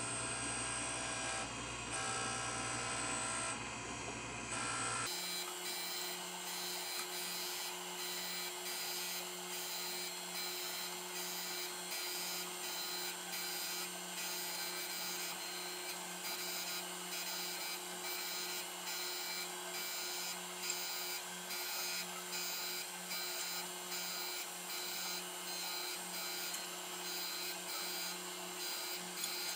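Taft-Peirce surface grinder running, its wheel grinding the steel vise jaws under flood coolant on a half-thousandth pass: a steady motor hum with a grinding hiss that pulses as the table moves back and forth. The sound shifts about five seconds in.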